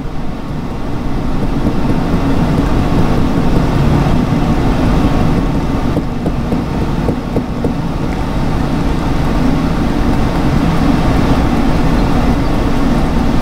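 Steady low rumbling background noise throughout.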